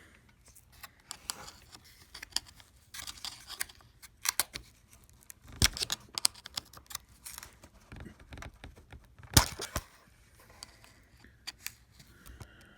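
A small hand tool picking and scraping at the keyboard rivets in a MacBook Pro A1398's aluminium top case: irregular light clicks and scrapes, with two sharp snaps, one a little before the middle and a louder one about three-quarters through.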